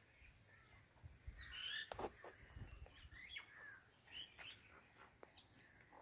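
Faint, scattered bird chirps, short and high-pitched, with a couple of soft clicks about two seconds in.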